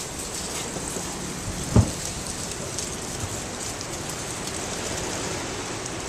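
Strong wind blowing as a steady rushing hiss, with one sudden loud low thump of a gust buffeting the microphone about two seconds in.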